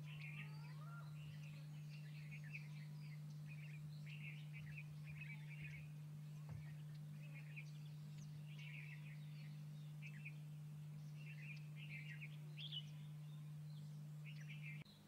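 Small birds chirping in quick, scattered bursts over a steady low hum, with a few faint rising whistles at the start; the hum and background cut off suddenly near the end.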